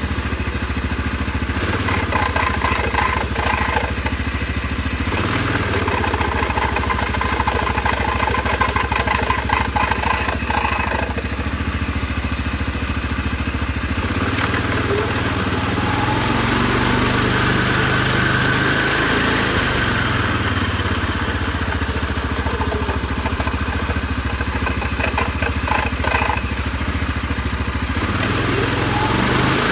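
CFMoto 500's engine running with its CVT variator making a strange chattering noise after getting water in it. The chatter comes and goes in bursts, and the engine speed rises for a few seconds in the middle.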